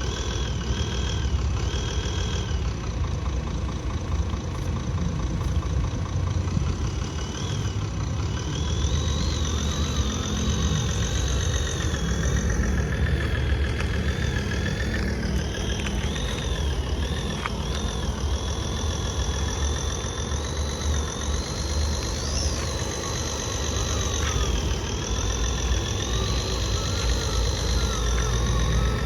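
RC excavator and RC dump truck at work: a steady engine-like idle rumble with a thin high whine that rises and falls.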